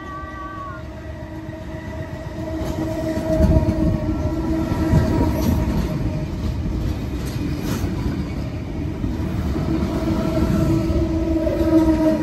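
NSW TrainLink Intercity V set, a stainless-steel double-deck electric train, passing through the station without stopping. It gets louder over the first few seconds, then holds a steady rumble and hum, with a few knocks from the wheels on the track.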